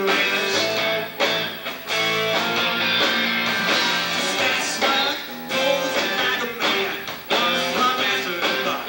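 A rock band playing live: electric guitars, bass guitar and drums, with a singer.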